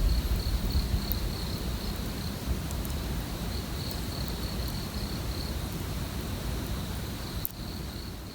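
Insects, crickets by their sound, chirring in a steady, finely pulsing high band, over a low rumbling noise.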